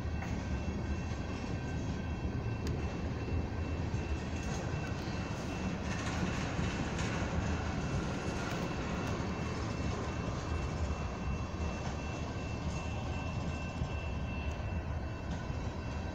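Tank cars of a loaded ethanol train rolling past: a steady low rumble of steel wheels on rail, with a thin steady high tone over it.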